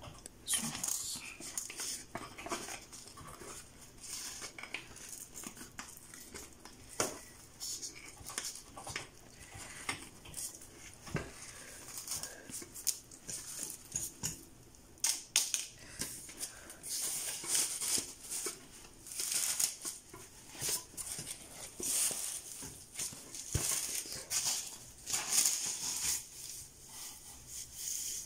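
Rustling, scratching and irregular clicks of a curly wig's hair and cap being handled and rubbed against a foam mannequin head close to the microphone.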